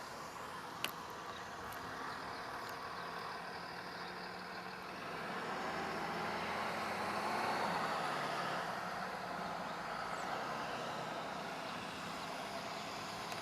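Road traffic noise, swelling as a vehicle passes in the middle and easing off again, with a single sharp click about a second in.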